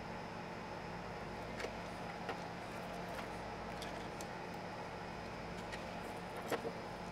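Steady hum and hiss of a workshop, with a few light clicks and taps as small tools and parts are handled on a workbench, the sharpest click near the end.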